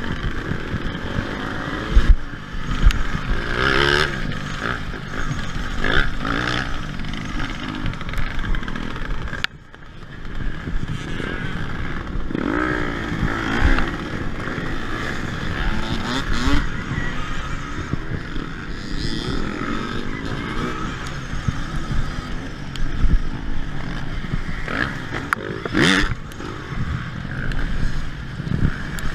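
Petrol dirt bike engines revving up and down close by in a race pack, with the clatter and knocks of the riding bike on rough dirt track.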